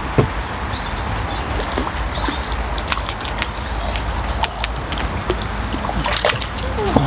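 Steady rain falling on the pond and nearby gear, with many sharp drop ticks, while a hooked crucian carp splashes and sloshes at the surface as it is played in. Near the end the sounds grow louder as the landing net is put into the water.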